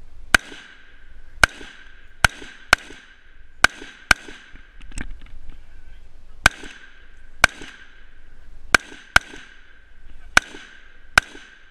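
Scoped rifle firing about a dozen shots at an uneven pace, some in quick pairs about half a second apart, each sharp crack followed by a short echo.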